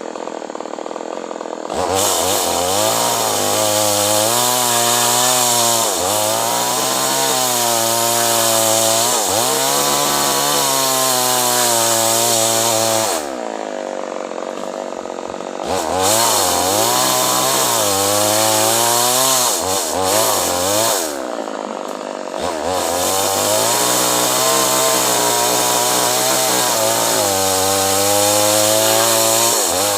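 Two-stroke chainsaw cutting acacia wood, its engine pitch rising and sagging under load. It drops back to idle about two seconds in, a little before halfway and again about two-thirds through.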